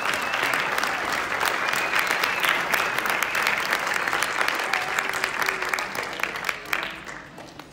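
Audience clapping steadily, a dense patter of many hands, which fades and dies away near the end.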